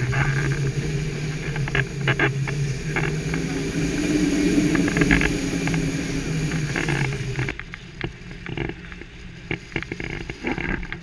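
Wind rushing over a camera microphone in paraglider flight, with a steady low drone and scattered short knocks of buffeting. The rush drops abruptly about two-thirds of the way in, leaving fainter wind and knocks.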